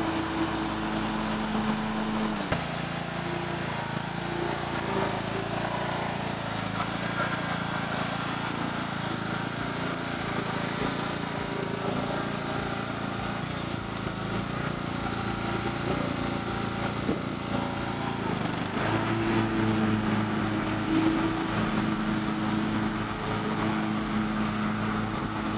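Troy-Bilt riding lawn mower engine running as the mower drives. Its steady note changes about two and a half seconds in and becomes steady again near the end.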